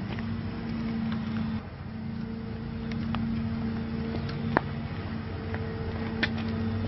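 A steady low mechanical hum, with a few sharp clicks and knocks over it.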